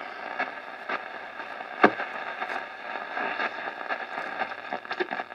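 Sanyo Campanetta seven-band radio hissing with static and faint whistles between stations, with a few sharp clicks from its push-button band selector, the loudest about two seconds in.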